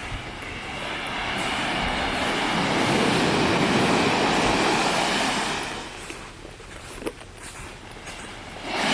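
Pacific Ocean surf: a wave breaking and washing up the beach, its rush building over about three seconds and dying away by about six seconds in, with the next wave starting to break near the end.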